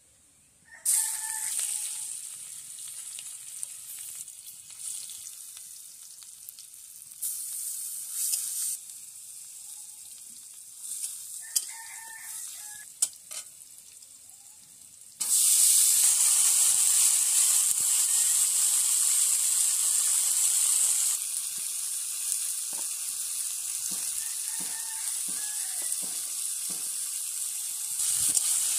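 Hot oil sizzling in an iron wok over a wood fire, starting suddenly about a second in as food goes into the oil, then jumping to a much louder sizzle about halfway through as chopped vegetables are added, easing a little after a few seconds, with steel spatula clicks against the wok as they are stirred. A rooster crows briefly in the background twice in the first half.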